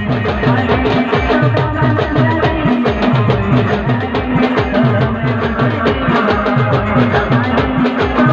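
Timli dance music played by a live band: a fast, steady drumbeat with deep pitched bass strokes and a melody line running over it.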